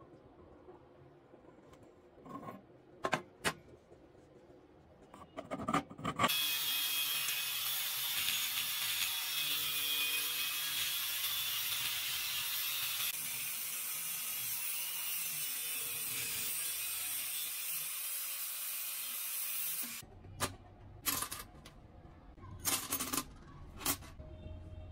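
Angle grinder cutting through a coil of steel round bar to part it into rings: a steady, loud hiss that starts about six seconds in and stops about twenty seconds in. Sharp metal clinks before and after, as steel pieces and rings are handled.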